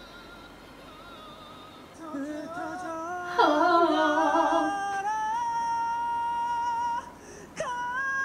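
Faint singing from a piano-accompanied performance, then, about two seconds in, a much louder male voice singing unaccompanied. He sings a short run of notes and then holds high notes with slight vibrato, breaking off briefly near the end before taking another high held note.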